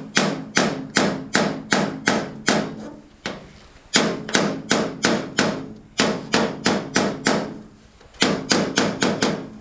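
Body hammer tapping out a dent in an aluminum canoe hull. The taps are light and quick, about four a second, each with a short metallic ring. They come in three runs with two brief pauses, one about three seconds in and one near the end.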